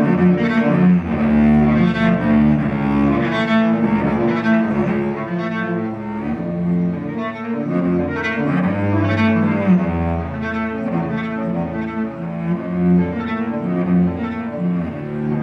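Solo cello played with the bow, a continuous stream of quickly changing notes.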